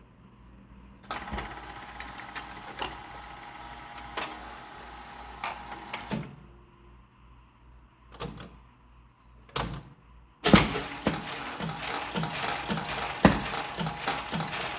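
Wurlitzer jukebox mechanism running: a motor whirs with clicking for about five seconds, then two separate clunks. Near the end a record suddenly starts playing with a steady beat.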